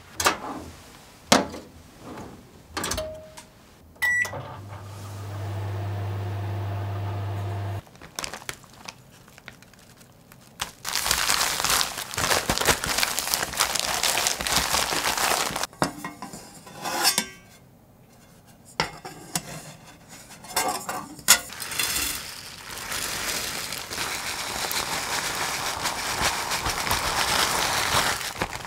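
A few knocks, then a microwave oven beeps once and runs with a steady hum for about four seconds before cutting off, melting the butter. Later, Oreo cookies are crushed by hand inside a zip-top plastic bag: loud crinkling of plastic with crunching, in two long stretches.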